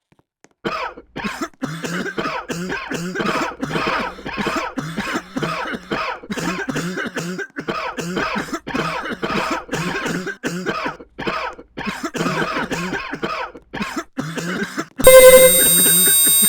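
A person coughing over and over, about two short coughs a second, kept up for some fourteen seconds. Near the end a loud steady tone cuts in and drowns it out.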